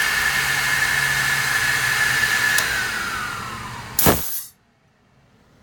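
High-pressure PCP air compressor's high-speed cooling fans running with a steady whine, then switched off and winding down with a falling pitch. About four seconds in, a short, loud blast of air comes from the compressor's condensate bleed valve as it is opened.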